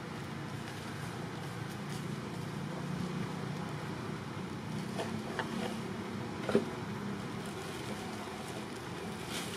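Steady low outdoor background rumble, with a few light clicks and one sharper snap about six and a half seconds in.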